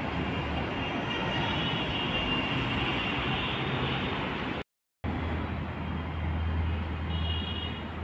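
Steady running noise of a passenger train in motion, with faint high tones twice. The sound cuts out completely for a moment a little past halfway, then resumes with a low hum underneath.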